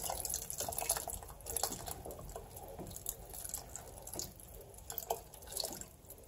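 Milk poured into a saucepan of hot chicken broth thickened with flour while a wooden spoon stirs it: liquid trickling and splashing with irregular small ticks and bubbles, fading a little toward the end.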